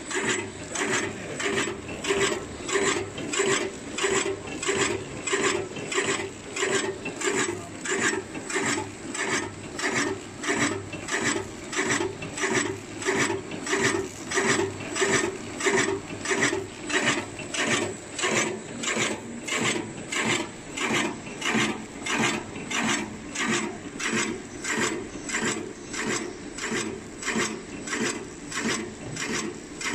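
Automatic packing machine running, wrapping small pieces in film, with a steady, even rhythm of rasping mechanical strokes, roughly two a second.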